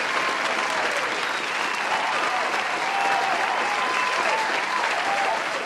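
A large crowd applauding steadily, with cheering voices calling out over the dense clapping.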